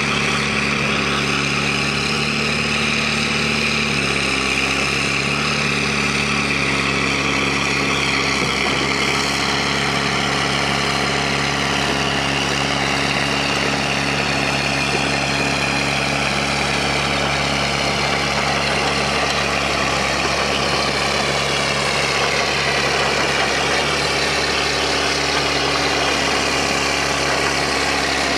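Diesel engine of a 1991 Dresser TD8G-LT crawler dozer running steadily as the machine drives slowly, with a high whine over it that drifts gently in pitch.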